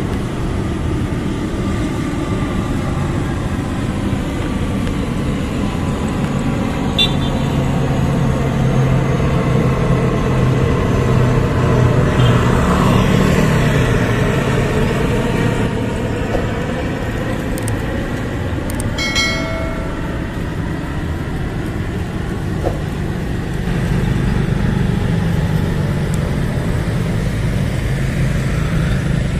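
Twin-engine turboprop aircraft flying low overhead, a steady propeller drone that swells to its loudest around the middle as it passes closest, over a background of street traffic. A short horn toot about two-thirds of the way through.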